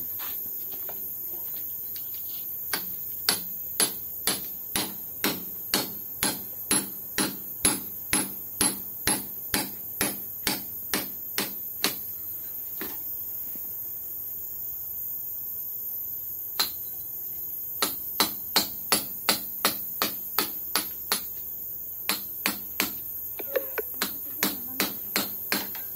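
Hammer strikes, sharp and regular at about two a second, in three runs with pauses of a few seconds between them.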